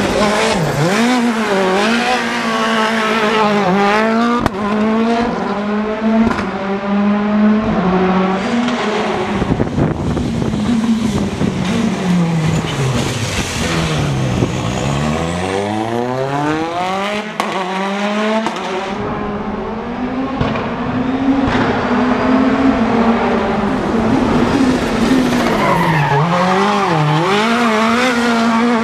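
Citroën DS3 WRC rally car's turbocharged 1.6-litre four-cylinder engine revving hard and dropping again and again while its tyres squeal in drifts. About halfway through the revs fall low, then climb steadily back up.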